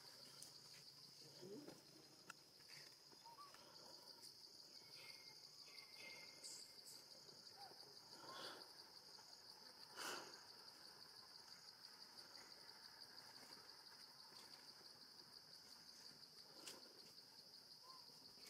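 Faint, steady high-pitched insect shrilling, with a few soft clicks.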